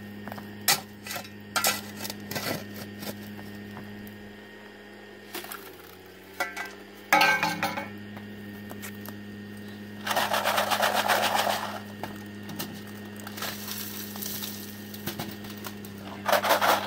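Hand digging in rocky desert ground: a metal tool strikes and clinks on stones, with longer scraping runs of gravel about seven, ten and sixteen seconds in, over a steady low hum.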